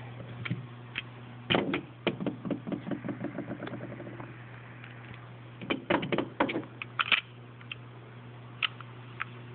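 Clicks and clacks of handguns being handled on a table: a burst of clacks about a second and a half in, a run of quick fading ticks after it, then another cluster of clacks around six to seven seconds and a few single clicks, over a steady low hum.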